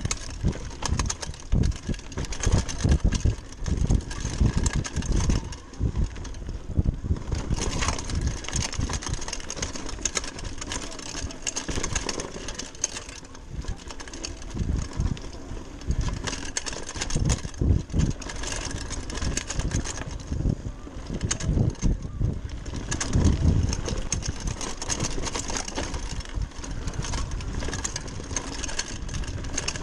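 Wind buffeting the microphone of an action camera, with knobby tyres rumbling over a dirt trail and a hardtail mountain bike rattling and knocking over bumps while riding downhill.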